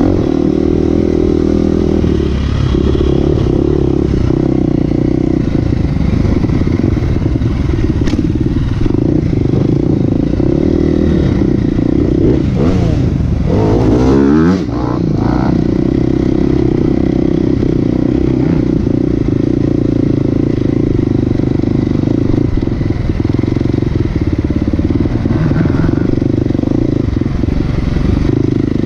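Off-road motorcycle engine running steadily under load, its pitch sweeping up and down quickly about halfway through as the throttle is worked.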